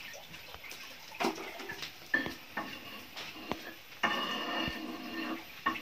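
Scattered light clinks and knocks of a metal wok and spoon and other kitchen pots, with a fainter drawn-out sound about four seconds in.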